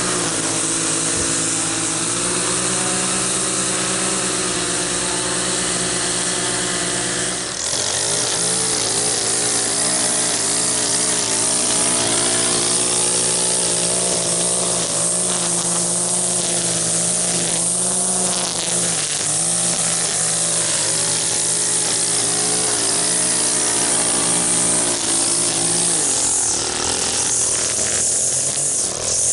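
Gas string trimmer engine running hard while trimming grass, its pitch rising and falling as the throttle is worked, with a short dip about seven and a half seconds in.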